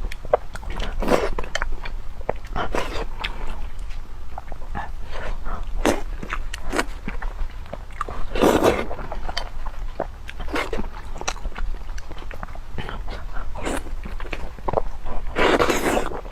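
Close-miked mouth noises of a person eating pig brain in red chili oil: wet smacking and chewing clicks throughout, with a few longer, louder wet bursts about 1, 3, 8.5 and 15.5 seconds in.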